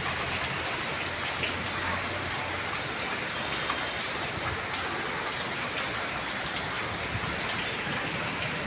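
Heavy monsoon rain pouring steadily, a continuous dense hiss of rain falling on surfaces with scattered faint drop ticks.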